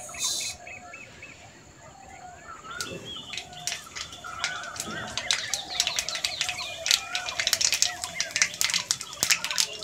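Mustard seeds crackling and popping in hot mustard oil in a karai: scattered sharp pops start about three seconds in and come faster and thicker towards the end. Birds chirp steadily in the background.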